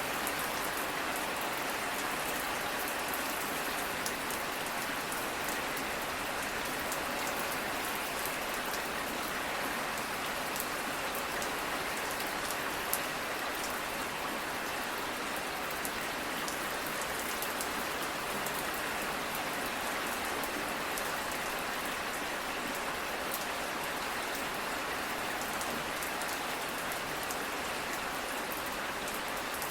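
Steady rain falling, an even hiss with many individual drops pattering on a surface.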